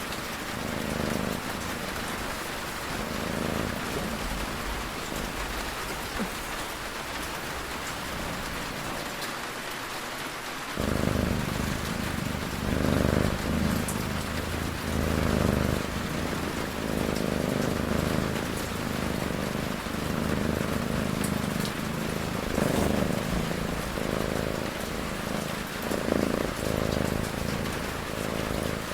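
Steady rain ambience with a cat snoring underneath in slow, regular low breaths every second or two; the snoring gets louder about eleven seconds in.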